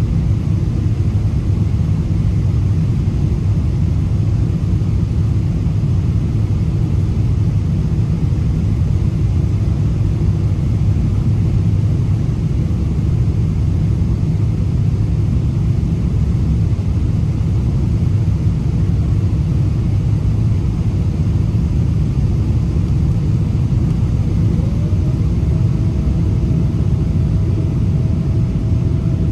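Steady low rumble of a Boeing 787 Dreamliner's engines and airflow, heard from inside the cabin while it descends to land. Near the end a faint thin tone rises briefly and then holds steady.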